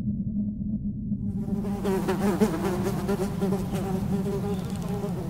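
A fly buzzing: a steady hum, joined about a second in by a higher tone that wavers up and down as it flies.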